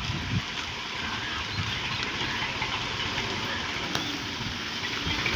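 Diesel tractor engine running steadily at idle, under a steady outdoor hiss.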